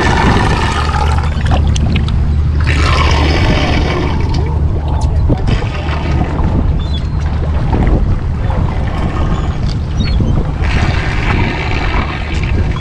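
Steady low drone of the fishing boat's engine, with stretches of rushing, splashing water noise over it.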